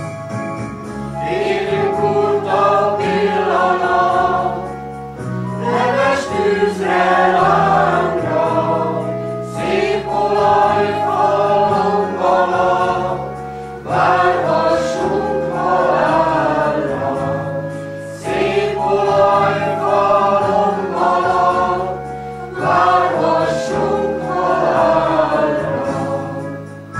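Mixed choir of older men and women singing in phrases of about four seconds, accompanied by sustained notes from an electronic organ.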